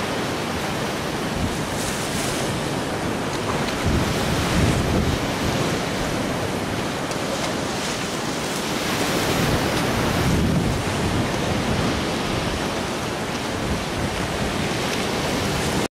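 Wind buffeting the microphone over a choppy sea: a steady rushing noise that swells in gusts about four seconds in and again around ten seconds.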